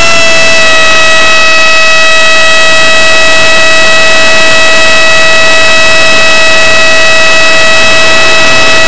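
70 mm electric ducted fan of a Sapac Typhoon RC jet whining steadily at high throttle in flight, very loud and close up, heard from a camera mounted on the airframe. The pitch dips slightly about half a second in and then holds level.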